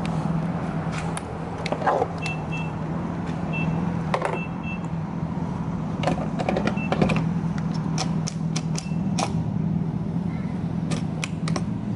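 Refueling a pickup truck at a gas pump: a steady hum of fuel flowing through the nozzle, with a few short high beeps in the first half and scattered clicks.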